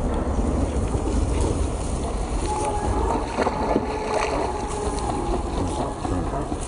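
Wind rumbling on the microphone, with a couple of faint held tones through the middle.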